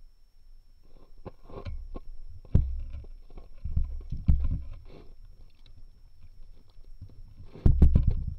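Hooked northern pike thrashing at the surface under an ice hole, heard through an underwater camera: muffled thumps, knocks and splashing in bursts, loudest about two and a half seconds in and again near the end.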